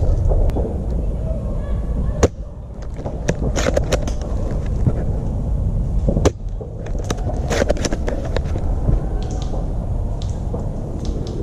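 Two sharp shots from a spring-powered JG BAR-10 airsoft bolt-action sniper rifle, about four seconds apart, over a steady low rumble and scattered small clicks.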